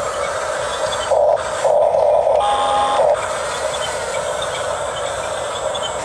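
Electric drive motors and gearboxes of a Huina 1569 RC bulldozer whirring as it drives forward on its tracks over dirt. A louder surge of motor whine comes from about one to three seconds in, with a held tone near its end.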